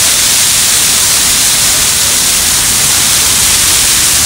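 Dry Christmas tree burning fully ablaze, its flames making a loud, steady hissing rush.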